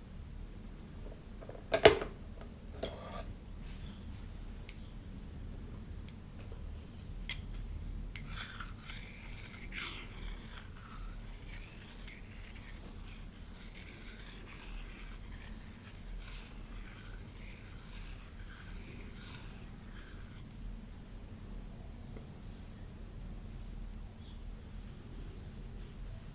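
Hair being handled close to the microphone, with soft scratchy rustling through the middle of the stretch. A sharp knock about two seconds in and a few lighter ticks are heard.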